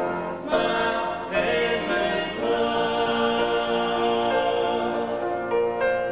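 Live music: a woman singing into a microphone to her own electronic keyboard accompaniment, with sustained chords and held notes.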